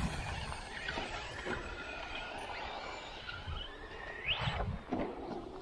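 Brushless electric motor of a 1/8 short-course RC truck (Castle 1515) whining as the truck accelerates, with a quick rising whine about four seconds in and fainter ones earlier, over a low outdoor rumble.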